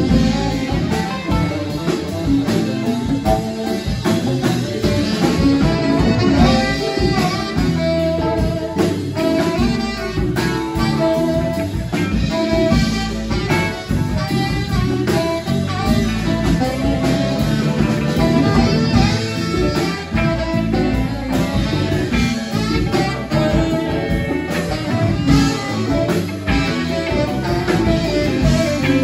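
Live band playing amplified jazz-rock, with saxophone over electric guitar, bass guitar, keyboard and drums.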